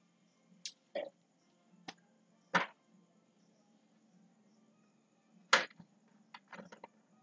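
A few scattered sharp clicks and taps, loudest about two and a half seconds in and again about five and a half seconds in, over a faint low hum.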